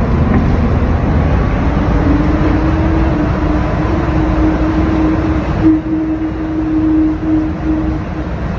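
Driverless airport shuttle train running through a tunnel, heard from inside the car: a steady rumble of the running gear, with a motor whine that rises in pitch over the first few seconds as the train gathers speed and then holds steady.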